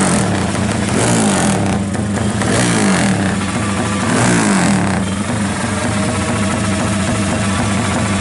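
Drag-race motorcycle engine running through a racing exhaust. It is revved in short bursts about three times, then settles to a steady idle about five seconds in.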